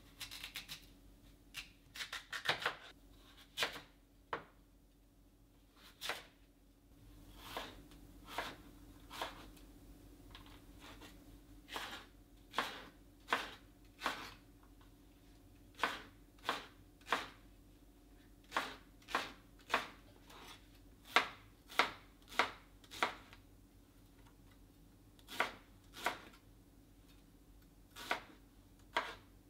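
Kitchen knife slicing through Korean radish and onion onto a wooden cutting board: a series of sharp knocks as the blade hits the board. The knocks are irregular at first, then settle into a steady rhythm of a little over one a second.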